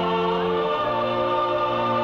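Slow end-credits music with voices and orchestra holding long chords; the chord changes and the bass steps down a little under a second in.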